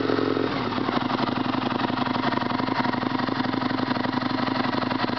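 Aprilia RSV Mille's 60° V-twin engine running through an Arrow slip-on silencer. Its pitch drops about half a second in, and it then idles steadily.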